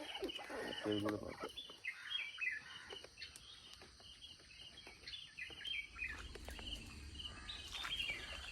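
Birds singing faintly: one repeats quick series of short high notes while others give short falling chirps. A brief low call sounds about a second in, and a faint low hum comes in during the second half.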